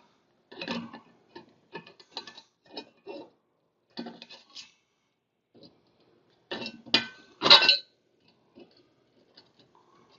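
Scattered metallic clicks and clinks of solid electrical wires being handled and twisted together, with a louder cluster of clicks about seven seconds in.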